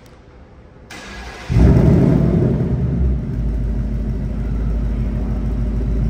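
A 2024 Ford Mustang GT's 5.0-litre Coyote V8 starting up: about a second and a half in, the engine catches with a loud flare, then settles into a steady, rumbling fast idle.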